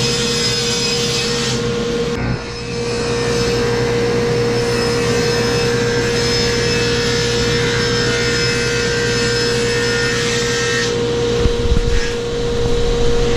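Table saw cutting a sheet of plywood: the saw motor runs with a steady hum while the blade hisses through the board. The cutting sound breaks off briefly about two seconds in, resumes, and stops near the end, followed by a few low knocks.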